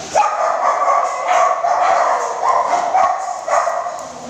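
A dog whining in several drawn-out cries, one after another.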